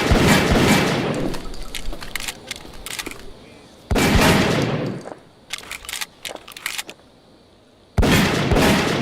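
Gunshot sound effects: three heavy blasts about four seconds apart, each with a long echoing tail, and a scatter of quicker, quieter sharp cracks between them.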